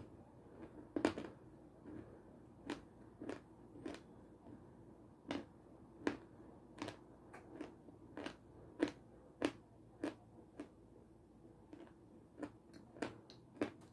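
Chewing of homemade coconut-coated Raffaello-style candy with the mouth closed: a run of irregular crisp crunches and mouth clicks, roughly one or two a second, the loudest about a second in.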